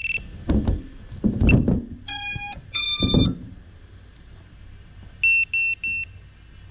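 GEPRC Mark 5 FPV quadcopter powering up: its motors sound two buzzy startup tones, the second higher than the first, as the ESCs initialise. The tones come amid handling knocks and thumps, then three short high beeps follow. A single short beep at the same high pitch opens the sequence.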